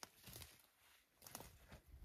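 Near silence, with a few faint short clicks and rustles.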